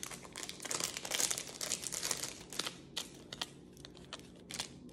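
Paper packaging crinkling and rustling as a small necklace is unwrapped from its card. The rustling is dense for about the first three seconds, then thins to a few scattered rustles and clicks.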